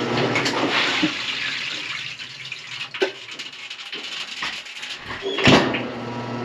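Water running down a bathtub drain just cleared of a hair clog, loudest in the first two seconds, then fading. There is a sharp click about three seconds in and a loud knock about five and a half seconds in.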